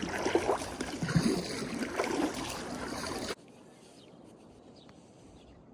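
Kayak being paddled: paddle strokes splashing and water rushing along the hull, with surges about once a second. About three seconds in the sound cuts off abruptly to a quiet outdoor background with a few faint ticks.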